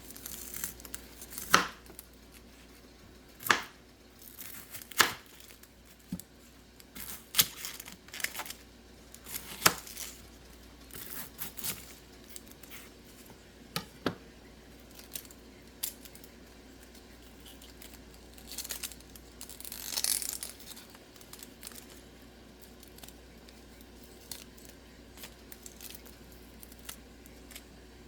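Kitchen knife slicing through an onion on a cutting board: irregular crisp cuts and knocks of the blade on the board, one every second or two, with a longer rustling scrape about two-thirds of the way through.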